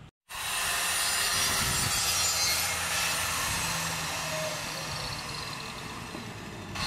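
Angle grinder cutting a hollow ceramic brick: a loud, steady, harsh grinding hiss that starts abruptly a moment in.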